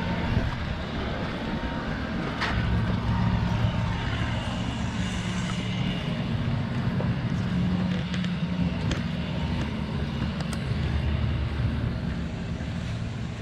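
Steady low drone of motorboat engines running out on the water, with a few faint clicks over it.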